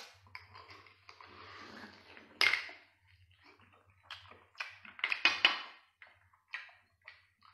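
A person eating abalone close to the microphone, slurping the meat off the shell and chewing. The sounds come in short, irregular bursts, the loudest about two and a half seconds in and around five seconds in.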